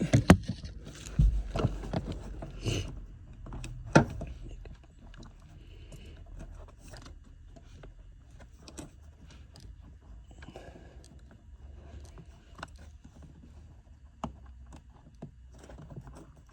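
Clicks, knocks and rattles of a seat belt part being wiggled and worked loose by hand: a flurry of handling knocks in the first few seconds with one sharp knock about four seconds in, then scattered light clicks.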